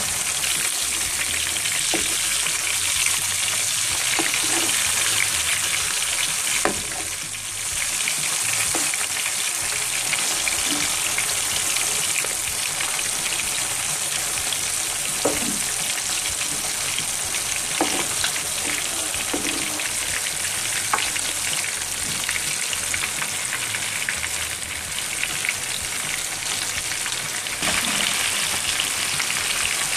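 Masala-marinated fish steaks sizzling steadily in hot oil over medium heat, with a few clicks of a metal slotted spoon against the pan as the pieces are turned.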